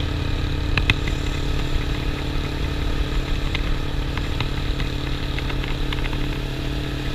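Suzuki motorcycle engine running at a steady cruise, heard from on board the bike. The engine note holds even with no revving, and a few light clicks sound over it.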